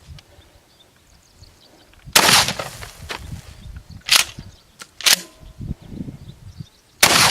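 Remington 870 12-gauge pump shotgun firing slugs: one loud shot about two seconds in and another right at the end, with two shorter sharp clacks between them.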